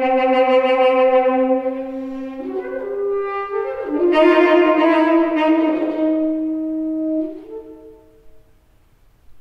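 Saxophone playing long held notes: a low note, then short steps upward into a loud swell about four seconds in, dying away about eight seconds in.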